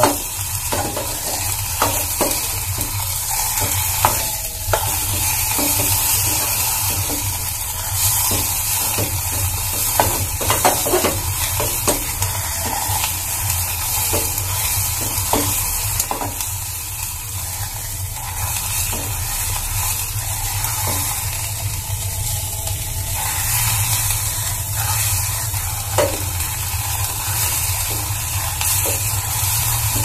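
Hard bird lime and a little coconut oil sizzling with a steady hiss in a tin milk can over a gas burner, heated to soften the lime, while a stick stirs it and knocks against the can's sides now and then.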